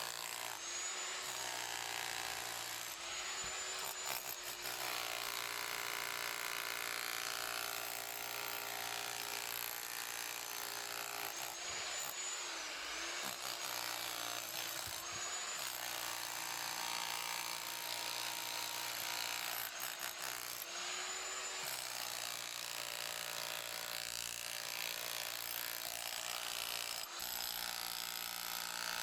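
An electric power tool, most likely a saw, runs continuously, cutting. Its motor pitch dips and recovers every few seconds as it bites and eases off.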